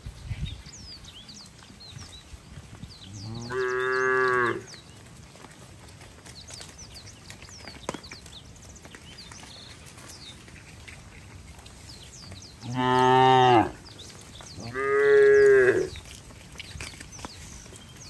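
Cattle mooing three times: one long moo about three seconds in, then two more close together in the second half.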